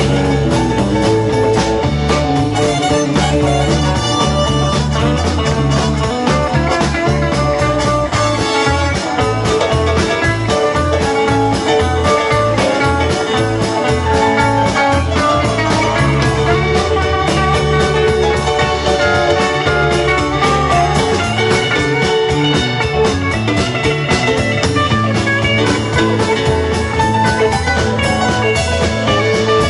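A rock band playing an instrumental passage, with electric guitar lines over bass and a drum kit keeping a steady beat.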